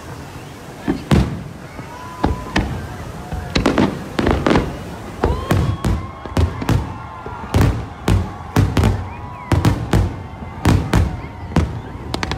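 Aerial fireworks shells bursting, a few scattered bangs at first, then rapid volleys of sharp booms from about five seconds in until just before the end.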